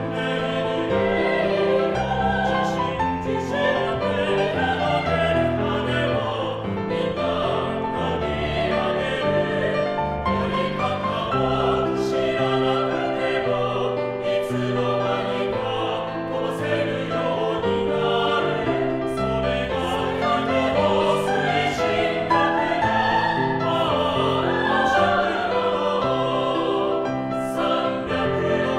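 Mixed-voice four-part choir singing in Japanese in close harmony.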